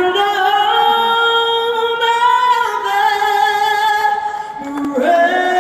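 A solo singing voice, unaccompanied, holding long drawn-out notes that step slowly from one pitch to the next.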